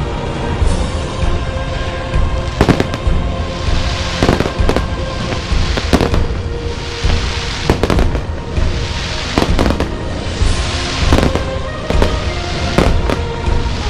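Fireworks going off: sharp bangs every one to two seconds, each followed by a second or so of crackling hiss, with music sounding steadily underneath.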